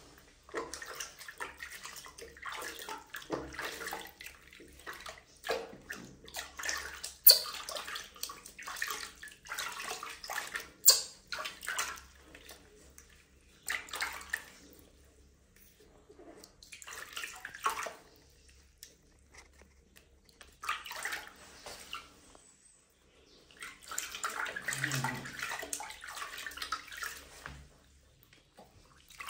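Water splashing and sloshing in a tub during a baby monkey's bath, in irregular bursts with short pauses between them. Two sharp knocks stand out, about seven and about eleven seconds in.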